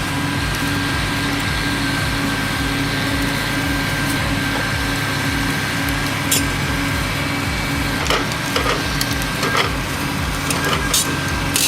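Heavy logging machinery running steadily, with wood cracking and splintering several times in the second half.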